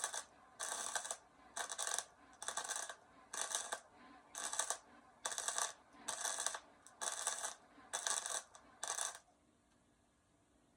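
A hand tool scraping over metal in steady back-and-forth strokes, about one every two-thirds of a second. The strokes stop about nine seconds in.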